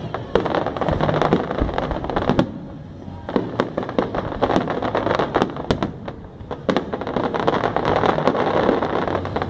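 Aerial fireworks shells bursting, with many overlapping sharp cracks and pops over a dense crackle. The crackling eases briefly about three seconds in and again about six seconds in before building back up.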